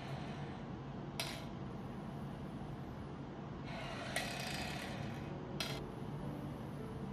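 Breath blown hard out through the mouthpiece and tube of a three-ball incentive spirometer held upside down for expiratory training: a rush of air lasting about a second a little past halfway, with two brief sharp sounds, one early and one near the end.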